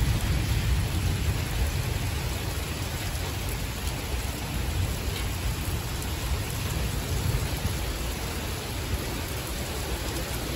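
Heavy rain pouring steadily, with the tail of a low thunder rumble fading away over the first second or two.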